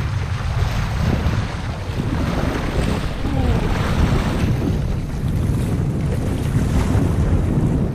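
Wind buffeting the microphone in a heavy low rumble, with water splashing and sloshing against a sailing kayak's hull as it runs through light chop.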